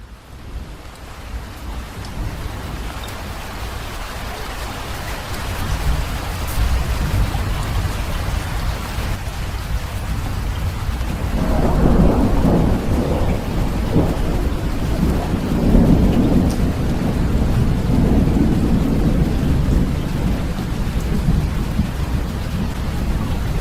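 Rain that swells from fairly light to heavy over the first few seconds, with long rolling rumbles of thunder from about halfway through.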